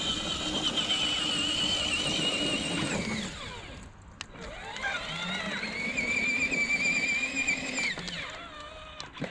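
Twin electric drive motors of a 24V kids' ride-on UTV whining as it drives under remote control. The whine winds down about three seconds in, spins up again about five seconds in, runs steady, and falls away near the end.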